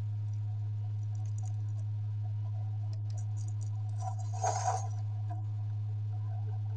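Mini LED projector running with a steady low hum. A few faint clicks come in the first half, and a brief clinking sound about four and a half seconds in.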